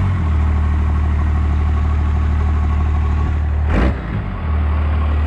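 The 5.9-litre 12-valve Cummins inline-six turbo diesel of a 1993 Ram 350, with a VE injection pump, idling steadily while it smokes after water in the fuel was flushed through. A brief bump about four seconds in.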